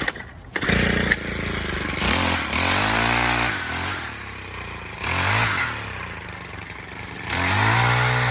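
Two-stroke chainsaw starting up, then revving up and dropping back several times before it holds at high speed near the end.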